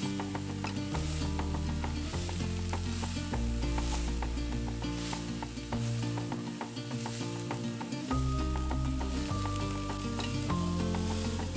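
Food sizzling as it fries in a pan, with the frequent scraping clicks of a utensil stirring it.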